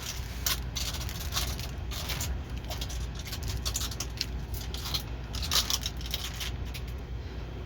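Plastic crinkling and clicking in short, irregular bursts.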